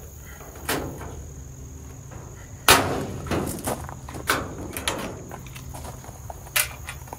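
A series of irregular knocks and clunks, about seven, the loudest a little under three seconds in. Under them runs a steady high-pitched tone.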